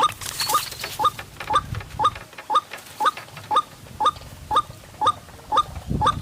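White-breasted waterhen (ruak-ruak) call, a short rising note repeated steadily about twice a second, as used to lure the birds to a trap.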